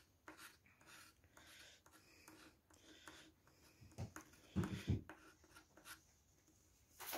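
Lottery scratch card being scratched by hand: faint, irregular rubbing strokes scraping off the coating. A short, louder low sound about four and a half seconds in.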